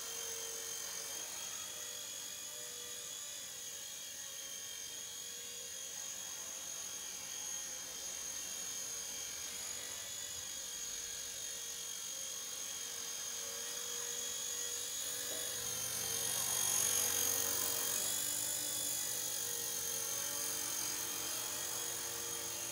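Blade Nano S2 micro RC helicopter in flight: a steady high-pitched whine from its electric motors and rotors. The whine swells louder for a few seconds about two-thirds of the way through, as the helicopter comes nearer.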